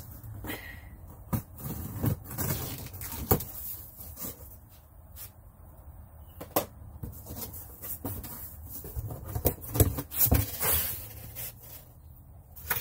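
A cardboard box and its packaging being opened and handled: irregular knocks, scrapes and rustles, over a low steady hum.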